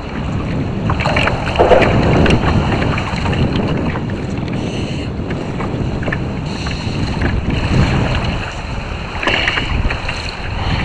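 Wind rumbling on the microphone, with choppy water slapping and splashing against a kayak hull; a few louder splashes stand out about two seconds in and near the end.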